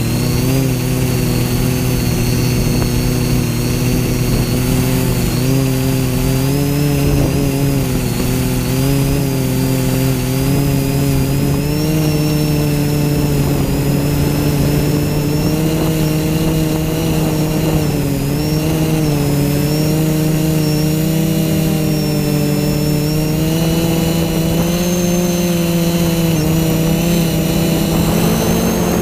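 Spidex v3 FPV quadcopter's motors and propellers whining steadily in flight, the pitch drifting gently up and down with the throttle.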